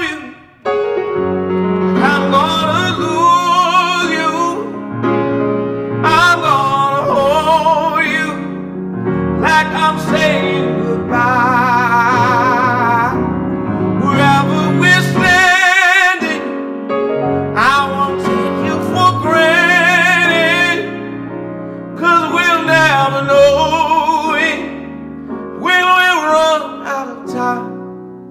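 A man singing a slow soul ballad in long, ornamented phrases with vibrato, accompanying himself on a grand piano.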